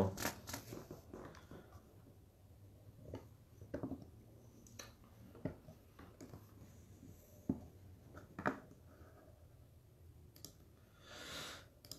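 Scattered light clicks and small handling noises, roughly one every second or so, over a quiet small-room background, with a short soft rush of noise near the end.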